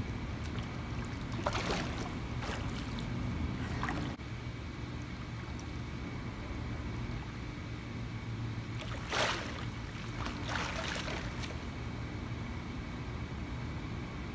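Pool water splashing as a swimmer kicks up into handstands and drops back down: a handful of short splashes, clustered in the first four seconds and again around nine to eleven seconds, over a steady low hum.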